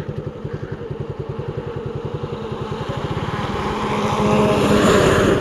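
Motorcycle engine running at low speed with an even, steady beat, joined over the second half by a hiss that grows steadily louder.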